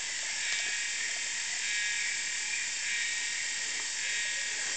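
Rainforest insect chorus: a dense, steady high buzzing, with a higher whine that swells and fades about once a second.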